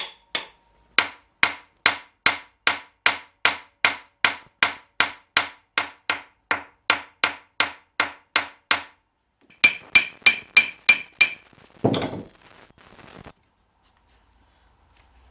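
Hammer blows on the rear axle to drive the axle shaft out: a steady run of about twenty blows at two or three a second, then after a short pause a quicker run of ringing metallic strikes and one heavier blow.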